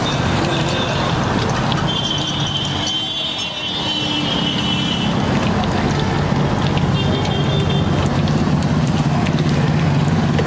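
Street traffic noise with a steady low engine hum. A horn sounds for about three seconds starting two seconds in, then again briefly around seven seconds.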